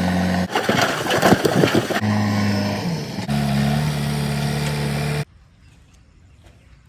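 A run of short spliced clips of a diesel engine running with a steady low hum, broken by a rattling, noisy stretch about a second in. It cuts off suddenly about five seconds in, leaving only faint ticks.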